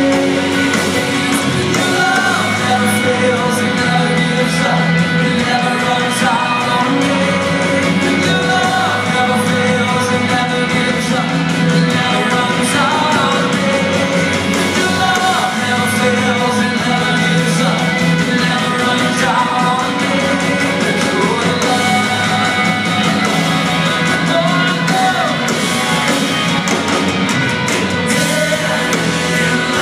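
Live worship band music with singing: a full band playing under a sung melody, loud and continuous.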